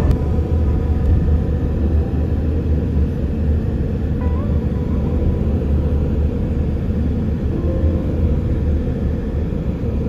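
Steady low road and engine rumble heard from inside a moving vehicle driving through city streets.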